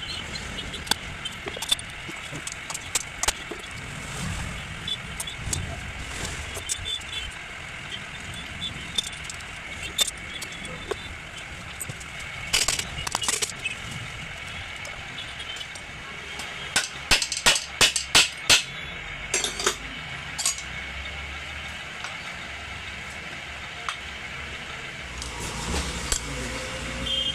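Scattered sharp metal knocks and taps on a chainsaw crankcase, with a quick run of about eight loud strikes in the middle, as the broken crankshaft bearing is worked out.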